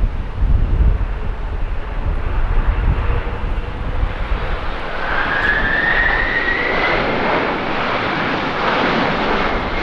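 Boeing 747's four jet engines running, with low wind rumble on the microphone at first; about halfway through the roar swells and a high whine rises in pitch and holds, the engines spooling up to go-around thrust.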